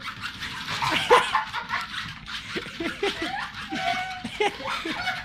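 People laughing and giggling in short broken bursts.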